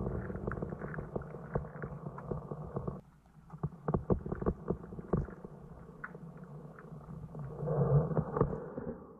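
Muffled handling noise: irregular dull knocks and rubbing over a low rumble, with nothing heard above the midrange. It drops out suddenly about three seconds in, then picks up again and swells near the end.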